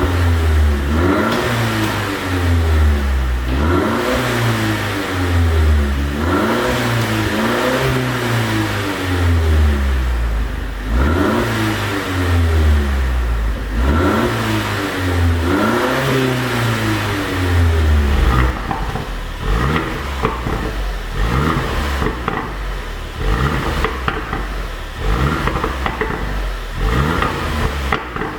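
2020 Mercedes-Benz GLC300's turbocharged four-cylinder engine being revved over and over, rising and falling about every two seconds, with crackling pops on the overrun from a pop-and-bang ECU tune. After about 18 seconds the revs become shorter, quicker blips.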